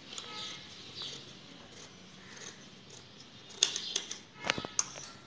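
Large fabric scissors cutting through layered net lace and cotton lining, a soft crunching snip with each stroke, then a few sharp clicks of the scissors near the end.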